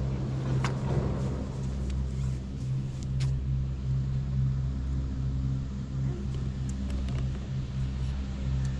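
Steady low mechanical hum of the gondola cable car's machinery running, with a few faint clicks.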